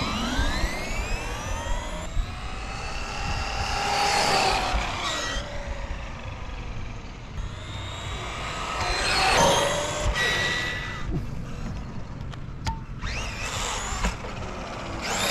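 High-pitched whine of an RC truck's Hobbywing XeRun G3 brushless motor, driven by an XR8 speed controller on a 3S LiPo, on speed runs. The whine rises and falls in pitch as the truck accelerates, passes and slows, with the loudest passes about four seconds in, near the middle, and near the end.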